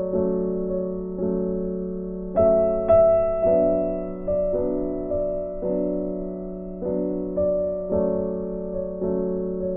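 Background piano music: slow chords struck about once a second, each one fading away before the next.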